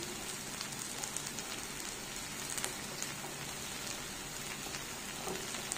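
Thin-cut potato sticks frying in a spoonful of oil in a pan: a steady sizzle with small crackles and pops.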